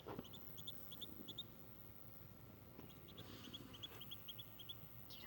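Muscovy duckling peeping: faint, short, high peeps repeated in quick runs of two or three, with a short pause in the middle.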